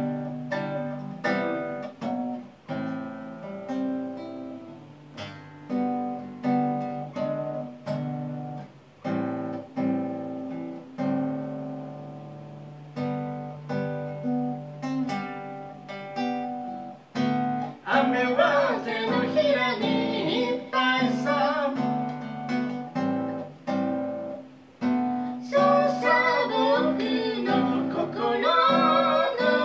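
Acoustic guitar strummed in a steady rhythm of chords. About two-thirds of the way through, a man's singing voice comes in over the guitar, breaks off briefly, and then comes back in.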